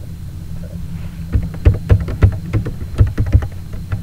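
Typing on a computer keyboard: a quick, uneven run of about a dozen key clicks starting about a second in, over a steady low hum.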